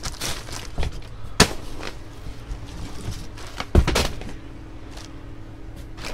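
Hands rummaging through a cardboard box of cloth and plastic bags: rustling and handling noise, with two sharp knocks about one and a half and four seconds in, the second the loudest. A faint steady hum runs underneath.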